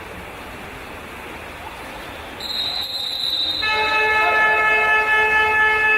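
A high, shrill whistle-like tone starts about two and a half seconds in, then a loud, steady game horn sounds for about two seconds over the pool-hall noise.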